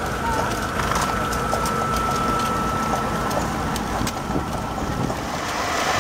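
Horse-drawn buggy on the move: the horse's hooves clopping on the sealed road and the wheels of the century-old buggy rolling, with wind buffeting the microphone. A thin steady tone runs through about the first half.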